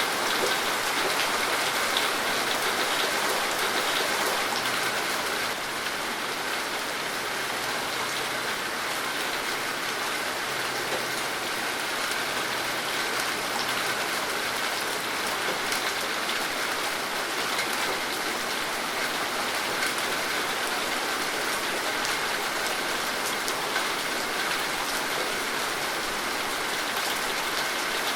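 Steady rain falling, with a dense patter of drops hitting a surface.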